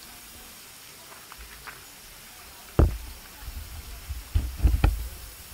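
Steady hiss of fine water spray from a garden mist fountain, broken by a sudden low thump about three seconds in and a cluster of low thumps near the end.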